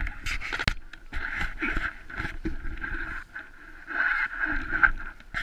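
Sled sliding and scraping over snow: an uneven hiss with a few sharp knocks near the start.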